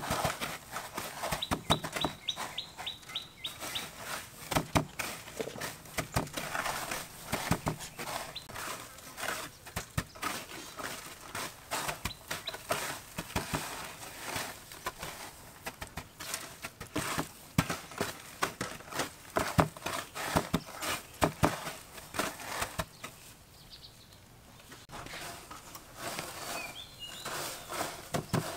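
Hands crunching and rustling chicken pieces through dry crumb coating in a metal baking tray: a dense run of small crisp crackles and clicks, with a short lull a little before the end.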